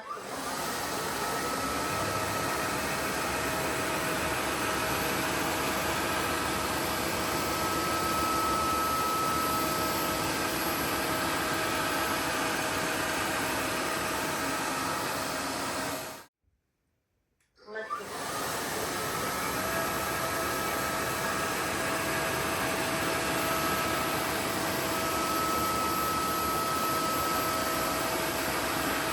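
Roborock F25 ACE wet-and-dry floor vacuum running: a steady rush of air with a high whine over it. It cuts out abruptly partway through and starts again about a second and a half later.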